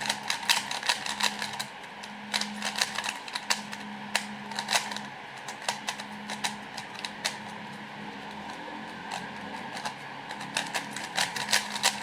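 A freshly lubricated 3x3 speed cube being turned rapidly by hand, its plastic layers clicking and clacking in quick runs of turns as the lube is worked in.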